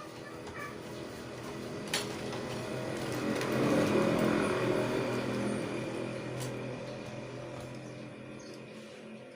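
A motor vehicle passing by, its noise swelling to a peak about four seconds in and then fading, with a sharp click about two seconds in.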